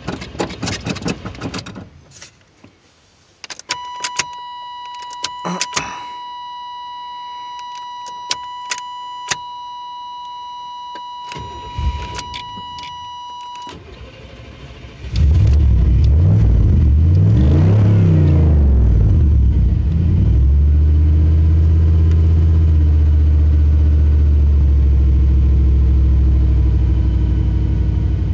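Keys and clicks, then a steady electronic warning tone for about ten seconds. About fifteen seconds in, a car engine cranks and catches, revs up and down briefly, and settles into a steady idle.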